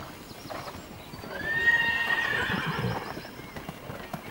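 A horse neighs once: a high call about two seconds long, starting about a second in, rising slightly at its start and then fading out.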